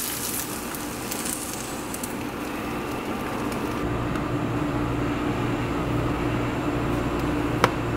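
Beaten eggs sizzling as they are poured into a hot frying pan of browned ground turkey, over a steady low hum. The sizzle thins out about four seconds in, leaving mostly the hum.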